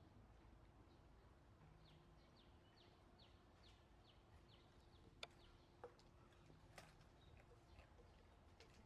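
Faint outdoor ambience, near silent, with a bird's quick, high, falling chirps repeating about three times a second for a few seconds. A few soft clicks follow near the middle.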